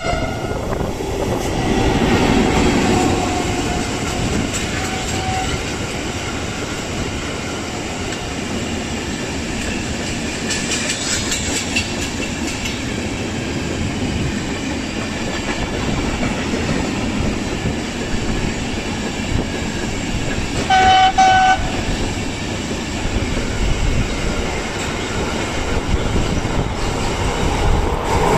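Electric freight trains passing through a station: a steady rumble and clatter of wheels on rail as the wagons roll by. About three-quarters of the way through, a locomotive horn gives one short blast.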